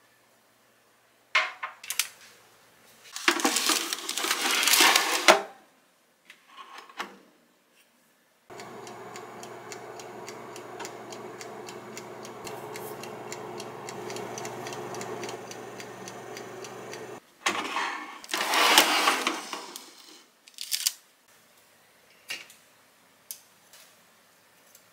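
Miras MS100-OAF air fryer running with a steady motor and fan hum that switches on and cuts off abruptly. Before it starts and after it stops there are a few seconds of loud rustling handling noise and scattered clicks.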